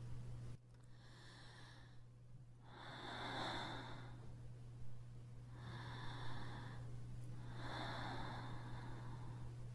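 A person breathing in long, slow breaths: four breaths of about a second each, coming every two seconds or so, the first one faint.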